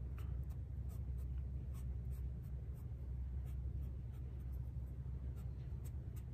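Foam brush dabbing and stroking paint onto a wooden board: faint, irregular scratchy strokes over a steady low hum.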